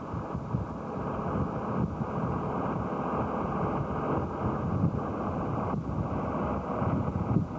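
Engine and road noise of a moving vehicle heard from inside it, a steady rumble.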